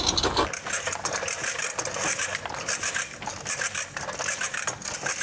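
Coxreels spring-driven hose reel paying out hose: rapid clicking and scraping as the drum turns and the rubber hose is drawn off it.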